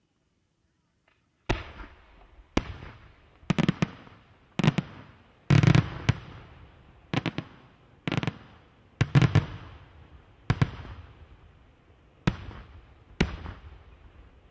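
Aerial firework shells bursting: about a dozen sharp bangs, starting about a second and a half in and coming roughly once a second, some in quick pairs or clusters, each fading off after the bang.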